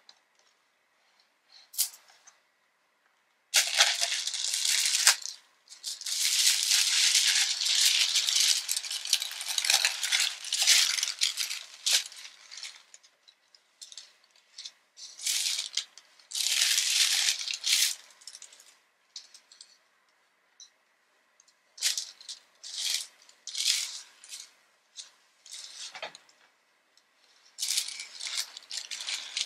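Tissue paper and a fabric dust bag rustling and crinkling as they are handled inside a cardboard gift box. The rustling starts a few seconds in and comes in bursts of a second or two with short quiet gaps.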